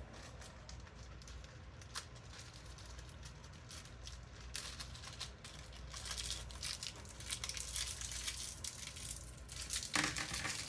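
Plastic accessory bags crinkling and rustling as they are handled and opened, the rustling getting busier about halfway through.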